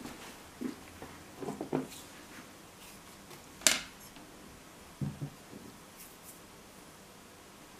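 Silicone spatula working a thick, sticky yeast batter in a glass bowl: a few soft squishing knocks, with one sharp click a little past halfway.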